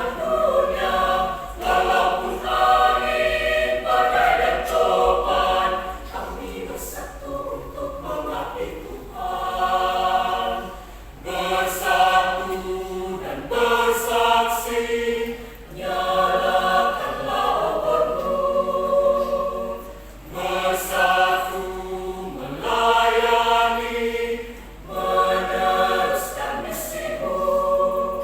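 Church choir singing in phrases a few seconds long, with brief breaks between the lines.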